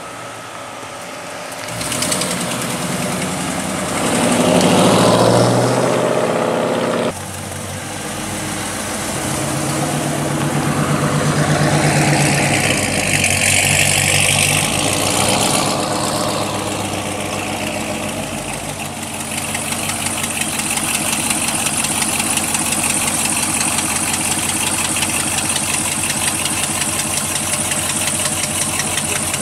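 Dodge Challenger R/T's V8 engine through a modified exhaust, revving up twice as the car drives, with an abrupt break between. It then settles into a steady idle.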